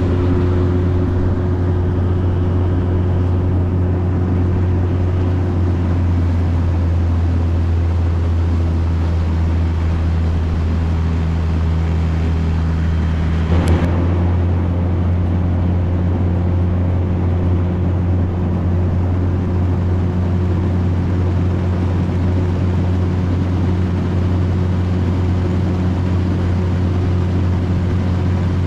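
Motorboat engine running steadily under way, a constant low hum with rushing noise over it. One brief sharp knock about halfway through.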